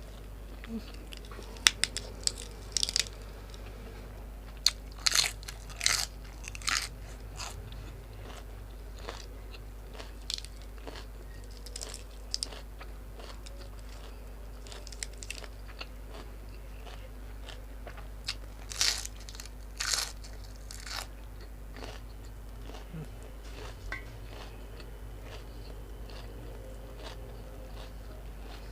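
Close-miked eating: crisp crunching bites and chewing of food, with the loudest bites coming in clusters a few seconds apart and quieter chewing between.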